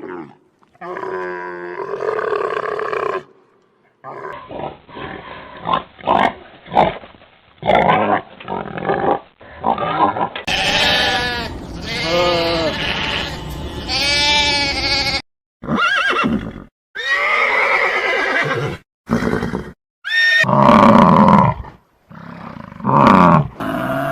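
A run of different animals' calls, one clip after another with abrupt cuts and short silent gaps between them: farm animals and others calling, some in short repeated calls and some in longer wavering ones.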